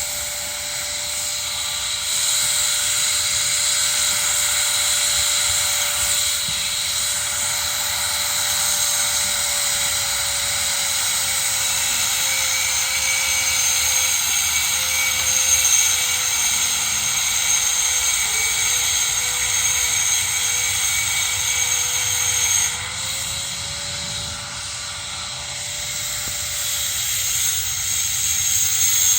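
Steel-fabrication work on pipe: a steady machine whine over a constant hiss. The whine's pitch sags slowly and then rises again about three quarters of the way through.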